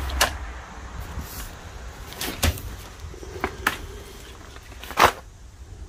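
Firework packs and cardboard boxes being handled and set down: a handful of sharp knocks and taps, the loudest about five seconds in.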